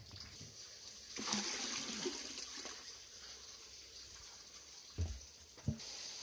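Water trickling and splashing from a pipe outlet into a koi pond, swelling about a second in and easing off, with two dull knocks near the end, then a steady high hiss of water.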